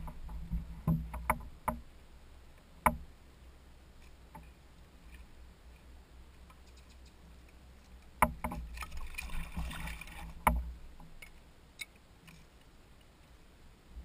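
Scattered sharp clicks and knocks of a caught fish being handled and unhooked with pliers aboard a plastic kayak, with a stretch of rustling and scraping about eight to ten seconds in. A faint low rumble runs underneath.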